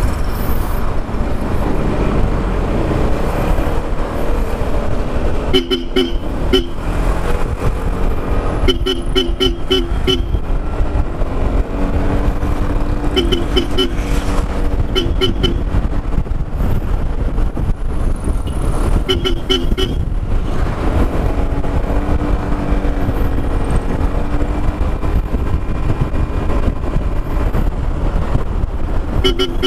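A Bosch Europa twin-tone horn on a Yamaha XMAX scooter, tapped in quick bursts of short beeps about half a dozen times, over steady wind rush and road noise from the moving scooter.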